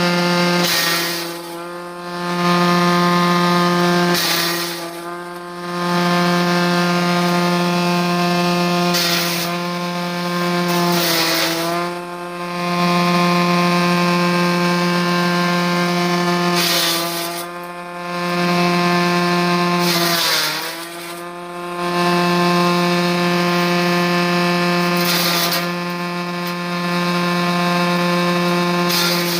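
Electric grass chopper driven by a 2 hp electric motor, running with a steady hum. Every few seconds comes a burst of harsh chopping noise from its steel blades, and the hum's pitch sags briefly under the load.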